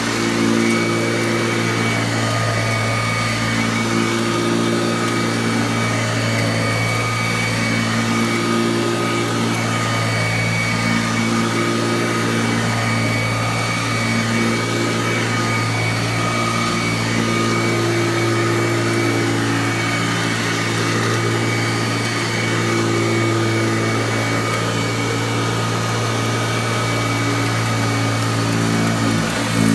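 Kirby Classic III upright vacuum cleaner running continuously with its brushroll agitating, a steady motor hum whose overtones swell and fade every few seconds.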